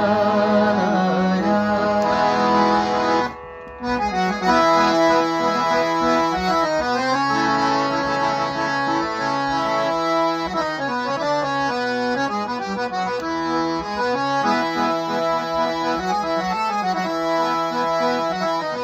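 Harmonium played solo: a melodic interlude of stepped notes over held chords. A wavering sung note with vibrato ends in the first second or so, and the playing breaks off briefly about three and a half seconds in before resuming.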